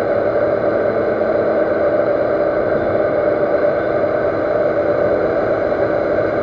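Metal lathe running with its spindle turning: a steady, even machine hum of the motor and headstock.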